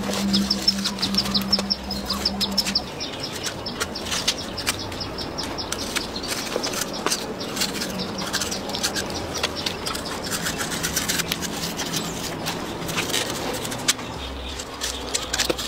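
Rapid, repeated rasping strokes of a small plastic scraper worked over a crocodile's scaly hide to clean it, with a low steady hum in the first few seconds.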